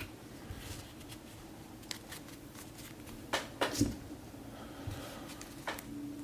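Topps Chrome football trading cards being handled and flipped through, with soft sliding and a few sharp clicks as cards are snapped from the stack.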